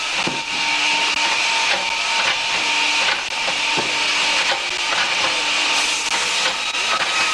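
Hydraulic firewood cutting and splitting machine running, a steady loud hissing mechanical noise with a faint hum underneath. Two short wooden knocks come through, one about half a second in and one near the four-second mark.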